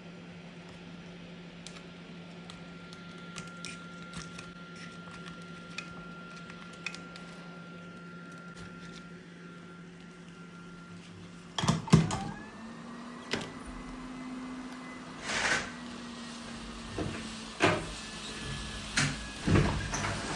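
A steady electrical hum of bench equipment with a few faint ticks. About halfway through comes a run of loud sharp clicks and knocks, then several short rasping noises a second or two apart, as hand tools work on a phone during a back-glass repair.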